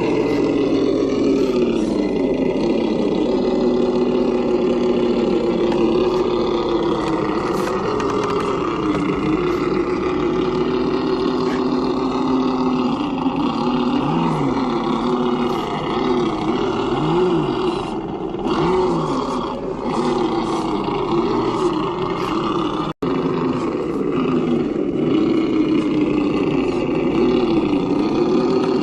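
Traxxas TRX-4 RC crawler's electric motor and geared drivetrain whining steadily. The pitch rises and falls again and again as the throttle is worked over the course.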